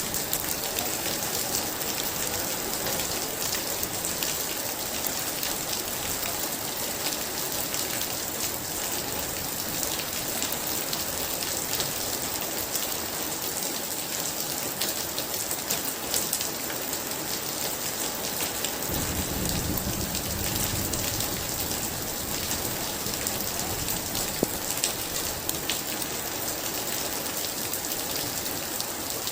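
Heavy rain pouring steadily, with a low rumble of thunder lasting a few seconds about two-thirds of the way through.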